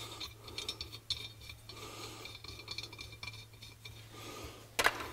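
Light handling noises of a cast aluminum motorcycle engine case turned in the hands: small clicks and faint scrapes and rubs, over a steady low hum. A sharper knock comes near the end.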